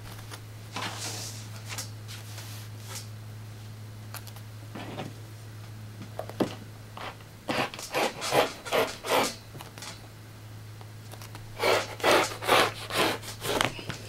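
Rotary cutter rolling through thick doubled terry-cloth towel along a ruler, in two runs of quick short strokes, about three or four a second, the first a little past halfway and the second near the end. A low steady hum sits underneath.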